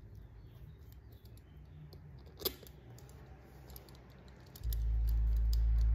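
Small metal clicks as float bowl screws are started by hand into a carburetor, with one sharper click midway. A steady low hum comes in suddenly near the end.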